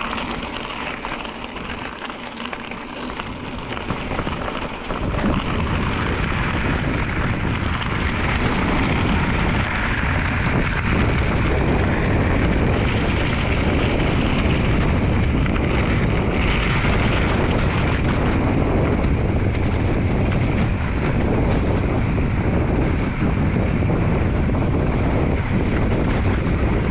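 Wind rushing over the camera microphone while riding a bicycle along a dirt road; it grows louder and deeper about five seconds in.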